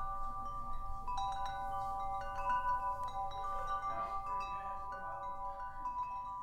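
Chimes ringing: several overlapping, sustained metallic tones, struck again at irregular moments, with a fresh cluster of strikes about a second in.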